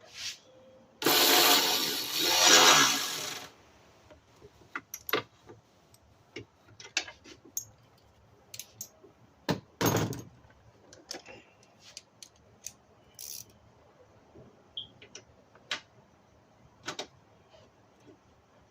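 Hand tools at work on the engine: a ratchet, socket and adapter clicking and clinking against metal as bolts are tightened. About a second in, there is a loud noisy burst lasting about two and a half seconds, then scattered single clicks and clinks.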